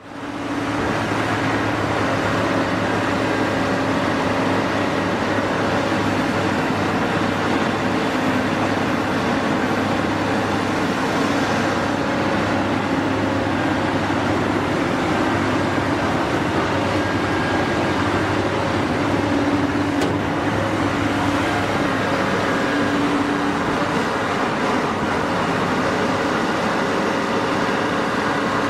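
Cat 349 hydraulic excavator working, its diesel engine droning steadily under load. A few held tones in the drone come and go as it digs.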